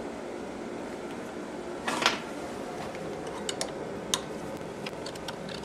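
Metal handling noises from a Citroën DS19 brake accumulator sphere being seated in a steel clamp plate: a brief scraping rattle about two seconds in, then a few sharp metallic clicks. A steady hum runs underneath.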